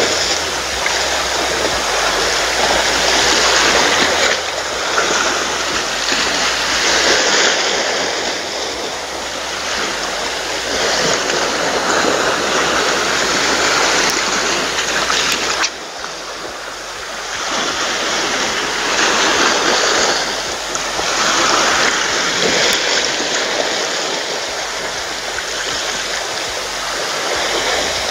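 Small sea waves washing over a rocky shoreline, a loud hiss of water that swells and eases every few seconds.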